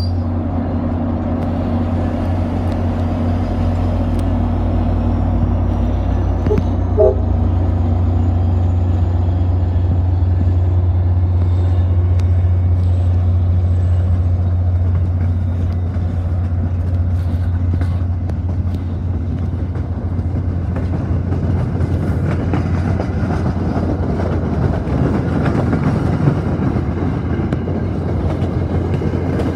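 MBTA commuter train with an F40PH-type diesel locomotive moving past: the locomotive's diesel drone is steady and loud, and the coaches' wheels rumble more strongly over the rails from about two-thirds of the way in.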